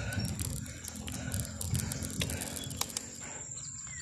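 Bicycle ride noise: repeated rattling knocks of the bike and its camera mount over a concrete road, with rumble on the microphone. About three seconds in the knocking stops and a steady high insect buzz takes over.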